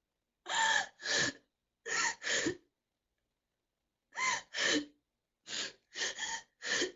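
A girl sobbing: about nine short gasping sobs in quick pairs, each falling in pitch, with brief silent pauses between the groups.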